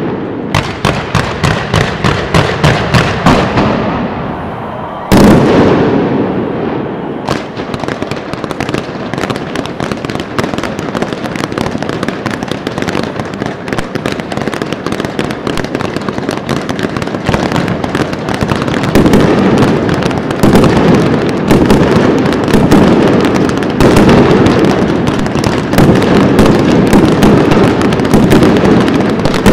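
Fireworks display: a run of sharp bangs about three a second, a single big blast about five seconds in, then a dense, near-continuous barrage of bangs and crackling that grows louder near the end.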